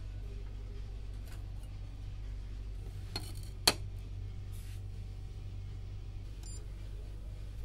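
Two sharp clicks about half a second apart, the second louder, as vitreous-enamelled steel sample plates are set down on a wooden bench, over a steady low hum.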